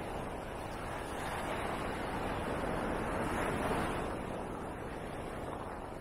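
Ocean surf on the beach: a wave breaking and washing in, swelling to its loudest about three and a half seconds in, then easing off.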